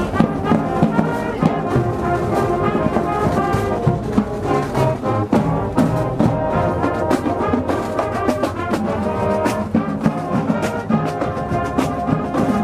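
High school marching band playing: a full brass section sounding chords over frequent sharp drum hits.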